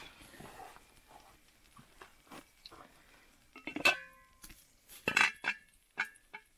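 Metal cookware and utensils clinking and knocking: scattered soft knocks, with two sharper clinks that ring briefly, about four and five seconds in.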